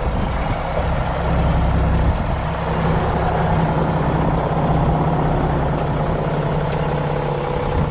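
Mack dump truck's diesel engine running steadily as the truck is backed into place.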